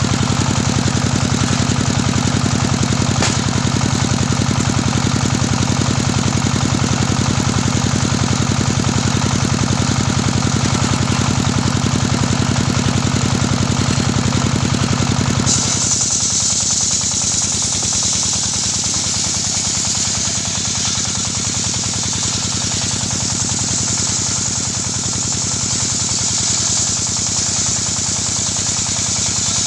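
Engine-driven portable circular sawmill running while its large blade rips a gmelina (white teak) log lengthwise. For the first half a strong low engine drone dominates; about halfway through the sound changes abruptly, the drone falling back and a bright high hiss of the blade cutting coming to the fore.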